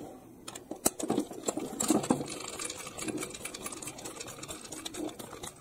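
Small battery motor of a Trackmaster or Plarail toy train running, with a steady, rapid clicking rattle of its gears and wheels.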